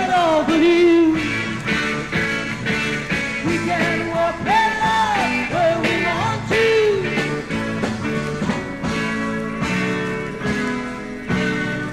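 Psychedelic rock band playing, with a held, bending vocal or lead-guitar line near the start and again around the middle over a steady beat.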